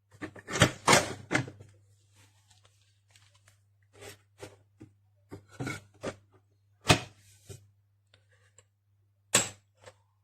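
Irregular clicks and knocks of objects being handled, loudest in a quick cluster near the start and in single sharp knocks about seven and nine seconds in, over a steady low hum.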